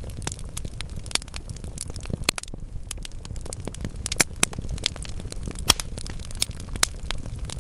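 Wood fire burning in a fireplace: burning logs crackling with dense, irregular snaps and pops over a low rumble of flame, with a few louder pops in the second half.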